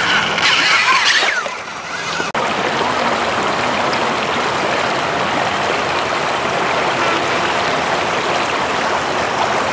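Shallow river rapids rushing steadily over stones. The first two seconds hold a brief higher-pitched hiss with a short falling whine, cut off abruptly.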